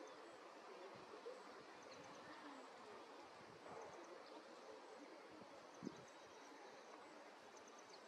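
Near silence: faint outdoor ambience, with faint high-pitched chirps in quick groups of three or four recurring every second or so, and a single soft knock about six seconds in.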